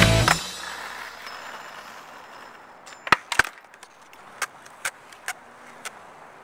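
A skateboard's wooden deck smacks down hard on concrete twice about three seconds in as the skater bails a trick, followed by a few lighter clacks and knocks.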